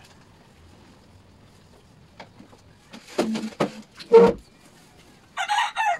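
A bamboo armchair being shifted on the floor: a few scrapes and knocks, the loudest a solid knock a little after four seconds in, then a short harsh scrape near the end.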